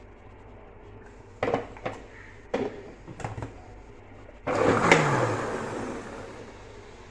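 Plastic blender jar knocked and clicked onto its motor base a few times. Then, about four and a half seconds in, the blender motor runs briefly and winds down with a falling hum.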